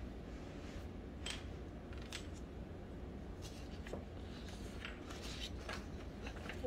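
A paper worksheet being handled and lifted, giving short scattered rustles and crinkles over a steady low room hum.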